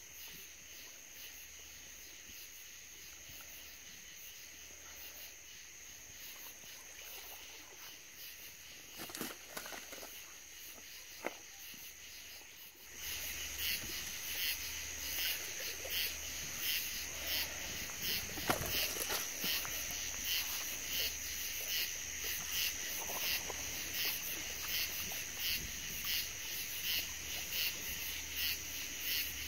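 Night insects chirping in a steady, evenly pulsing chorus, which gets louder about halfway through. A few faint knocks come through now and then.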